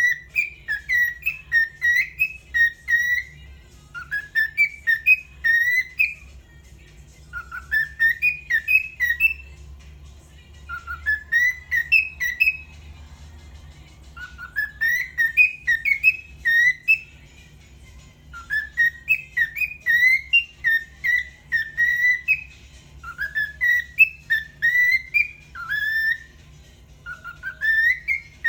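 Cockatiel whistling a tune: the same short phrase of quick, rising, sliding notes, repeated about eight times with brief pauses between.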